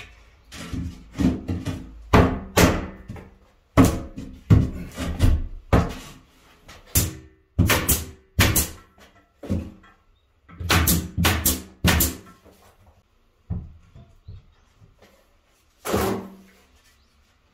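Pneumatic nail gun firing nails through pine tongue-and-groove boards into ceiling joists. The shots come in irregular runs, some in quick succession, each a sharp crack with a brief ring from the wooden boards.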